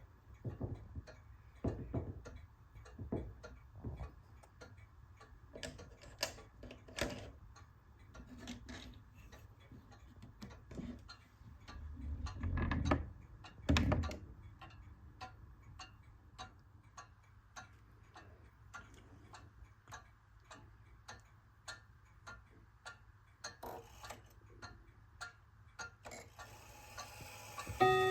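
Steady ticking of the pendulum movement of a 1933 Junghans/HAC chiming wall clock, with a couple of louder low rumbles about halfway through.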